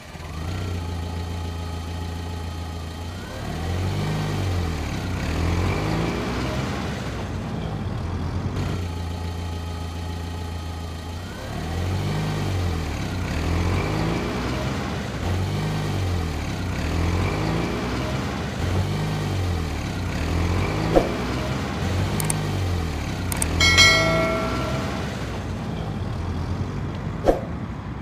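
Toy wheel loader running as it drives and pushes: a steady motor hum that rises and dips in pitch about once a second. A couple of sharp clicks and a short high beep near the end.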